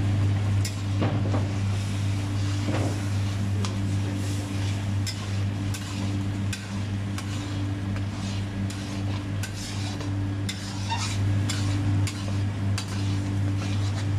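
A metal spatula scraping and knocking in an aluminium karahi as crumbly fried gram-flour mixture is stirred into thick sugar syrup, giving irregular scrapes and clicks. A steady low hum runs underneath.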